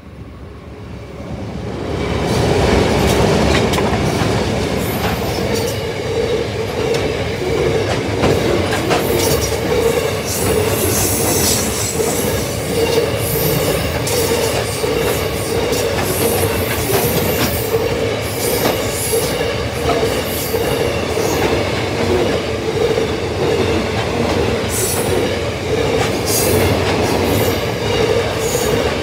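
Grain train passing close by: the diesel locomotive's approach swells sharply over the first two seconds, then the steady noise of the grain hopper wagons rolling past on the rails, with recurring high wheel squeals.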